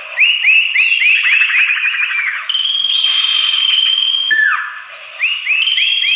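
Common iora (sirtu) song played as a bird-lure call: a quick run of about eight short upswept whistles, then a long steady high whistle, a single falling slurred note, and the quick run starting again near the end.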